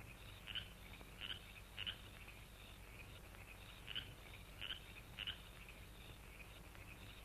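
Faint frogs calling in a night ambience: short high chirps repeating irregularly about every half second to a second, over a steady low hum.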